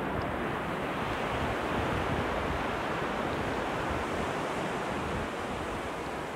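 Ocean surf breaking on a shallow, flat beach: a steady wash of waves, with wind rumbling on the microphone.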